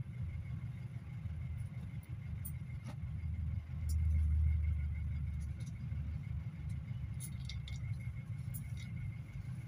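Steady low engine rumble of a GAZelle Next minibus idling in stop-and-go traffic, heard from inside the passenger cabin. The rumble swells louder for a second or two about four seconds in.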